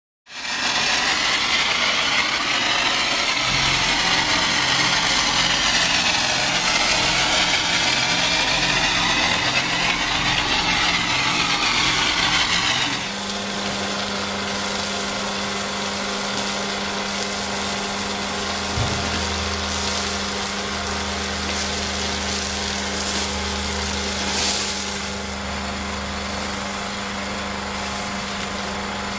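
Pressure washer spraying through a mechanical swing nozzle: a loud, wavering hiss of spray over a pulsing motor drone. About 13 s in the hiss falls away and a steady motor hum carries on.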